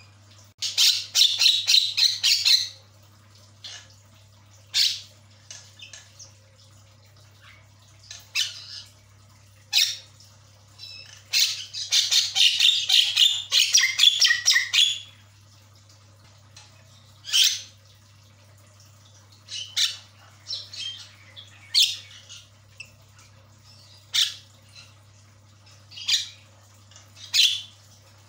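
Javan myna calling in full, eager song: two long bouts of rapid harsh chattering, about a second in and around the middle, with single sharp squawks every second or two between them.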